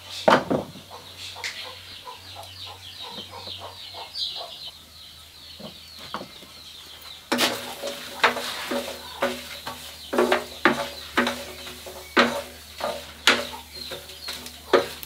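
Hens clucking in a run of short calls about once a second through the second half. Before that, rapid high chirping and a few sharp knocks.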